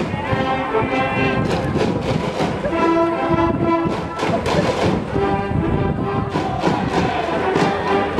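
School brass band playing a cheering tune, with trumpets carrying the melody over a steady drum beat.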